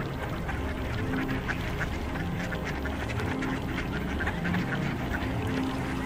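A flock of mallards calling, many short quacks overlapping steadily.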